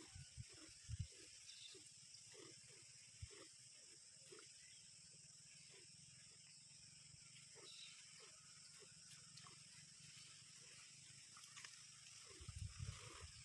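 Faint, rhythmic squirts of milk into a steel pail as a cow is milked by hand, about two to three squirts a second, over a steady hiss. A few low thumps come near the start and again near the end.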